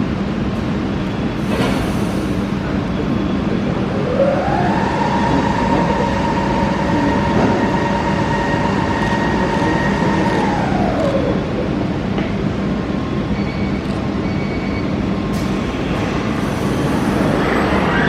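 Car-factory assembly-line machinery running with a constant low hum and clatter. About four seconds in, an electric drive whine rises in pitch, holds steady for several seconds, then falls away, like a motorised carrier or lift moving and stopping.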